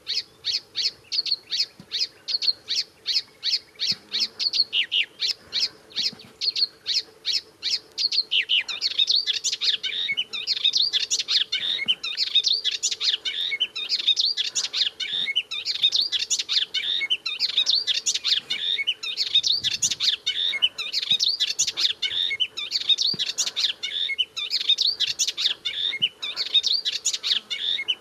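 Melodious warbler (Hippolais polyglotta) singing. It opens with short, evenly repeated chirps at about four a second. About eight seconds in, the song breaks into a fast, continuous babbling warble.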